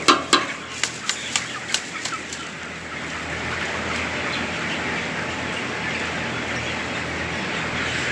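Broiler chickens in a crowded poultry shed: sharp knocks and wing flaps in the first two seconds or so, then the steady din of the flock.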